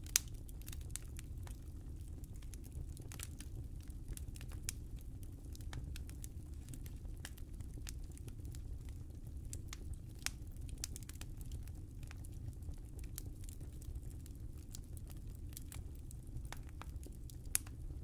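Wood fire burning in a fireplace: a steady low rumble of flames under constant small crackles, with a few sharper pops, one right at the start, one about halfway through and one near the end.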